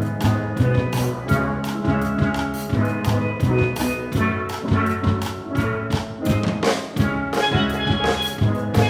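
Steel drum ensemble playing a pop song, with struck pitched notes over a steady drum-kit beat.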